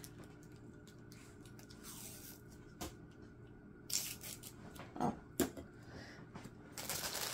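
A quiet room with a faint steady hum, broken by a few short clicks and knocks of objects being handled. A rustling starts near the end.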